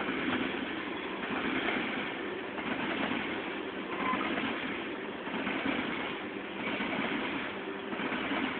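Covered grain hopper cars of a freight train rolling past, a steady rumble and clatter of wheels on rail that swells about once a second as the wheel sets go by.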